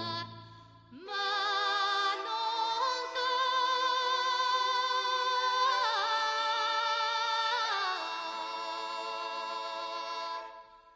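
Background music: a sung vocal line holding long notes with vibrato, fading out near the end.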